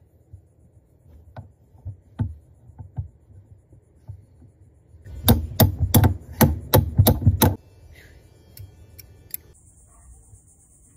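A hand tool knocking on the metal fitting at a wooden boat's stem. A few light taps come first, then about five seconds in a quick run of about eight sharp knocks, roughly three a second, then a few lighter taps.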